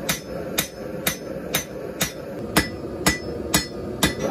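Blacksmith's hand hammer striking red-hot steel on an anvil, forging a blade blank: steady blows about two a second, some with a brief metallic ring.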